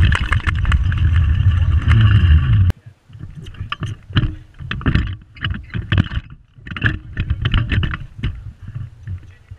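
Pedal go-kart rolling, heard from a camera mounted on its frame: a loud steady rumble that cuts off abruptly under three seconds in, then irregular rattling and knocking from the kart.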